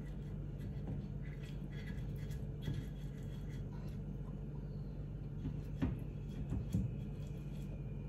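Soft brushing and a few light taps as an oil brush greases the cavities of a non-stick appam pan and is dipped into a steel cup, over a steady low hum.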